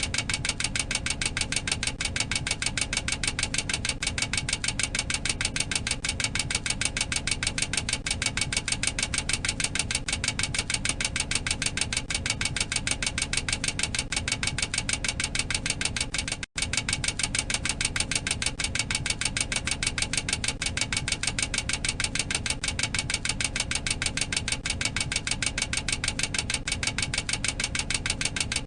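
Boeing 737-800 cockpit overspeed warning clacker sounding continuously: a rapid, even clacking that signals the aircraft is exceeding its maximum operating speed. It cuts out for an instant about sixteen seconds in, then carries on.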